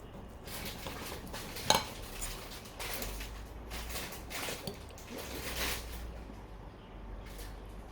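Kitchen utensils and dishes being handled, clattering in a string of short knocks and scrapes, with one sharp ringing clink of a utensil against a dish about a second and a half in.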